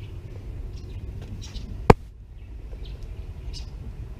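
Birds chirping faintly in short scattered calls over a steady low rumble, with one sharp click about two seconds in that is the loudest sound.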